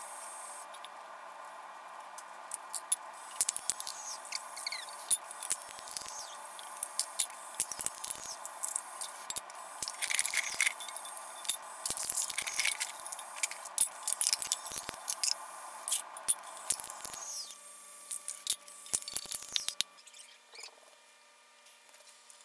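Sped-up time-lapse audio of a 12-volt linear actuator can crusher: the actuator motor running as a steady high hum, with rapid clicks, crunches and squeaks of aluminium soda cans being loaded and crushed. The hum cuts off about 17 seconds in and a few clicks follow, as the Arduino controlling the crusher stops working.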